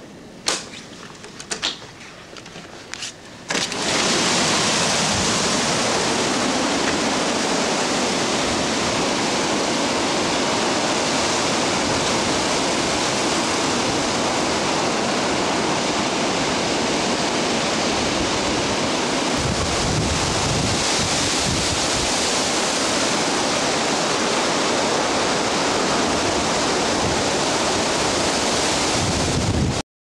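A few soft knocks, then about three and a half seconds in a sudden, loud, steady rush of hurricane wind through the trees, with wind noise on the microphone.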